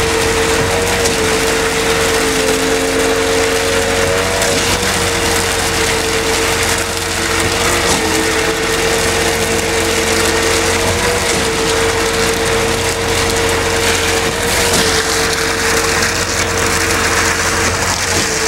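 Concrete pump truck running under load while pumping concrete through its boom hose: a loud, steady mechanical drone with a hum that dips briefly in pitch about every three and a half seconds.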